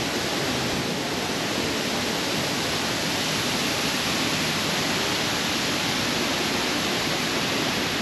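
Steady, even rushing hiss with no distinct events or clear voices.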